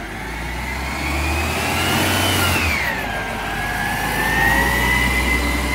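Mack LEU garbage truck accelerating past. Its engine and drivetrain whine rises in pitch, drops at a gear change just before three seconds in, then climbs again.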